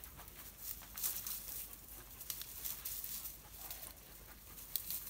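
Footsteps and brush on a stony path through scrub, heard as scattered light crunches and rustling clicks.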